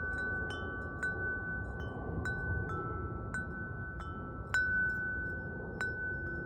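Handmade bird-cage wind chime ringing: its hammer strikes the chimes at irregular intervals, about a dozen times, and several clear tones ring on between strikes, with one louder strike about four and a half seconds in.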